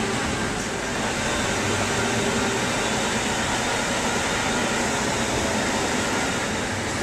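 Steady road and engine noise heard inside the cabin of a moving van.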